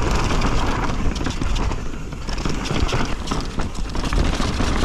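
Mountain bike riding down a rough trail, as heard by an action camera mounted on the bike or rider: a steady rumble of tyres on dirt and roots, with rapid rattling and knocking from the bike.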